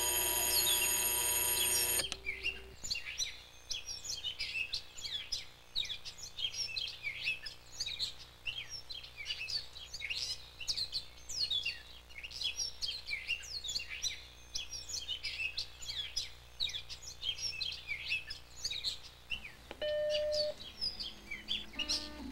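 An alarm clock rings for about the first two seconds and cuts off suddenly; then birds chirp busily, many short quick calls one over another. A short single beep sounds near the end.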